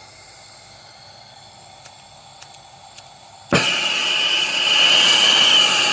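Plumber's gas torch being lit: a faint hiss with a few small clicks, then about three and a half seconds in the flame catches suddenly and burns with a loud, steady hiss.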